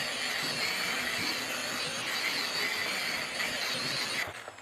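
Electric buffer machine with a polishing pad running steadily while buffing compound into a plastic headlight lens. About four seconds in it is switched off and its whine falls in pitch as it spins down.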